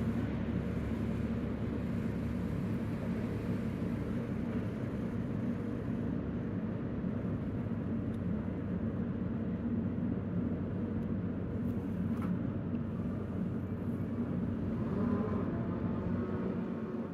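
Steady low engine rumble with a droning hum, from the ship and boat machinery at work; a faint higher whine joins near the end.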